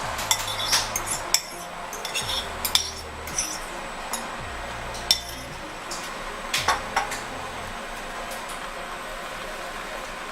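Spoon clinking and scraping against a frying pan while beaten eggs are stirred and cooked, in scattered sharp clicks, busiest in the first few seconds and again past the middle.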